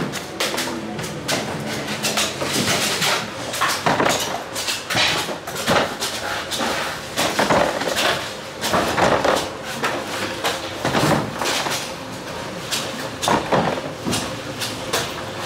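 A large knife chopping into coconuts: a run of sharp, uneven chops and knocks, about one or two a second, over steady market background noise.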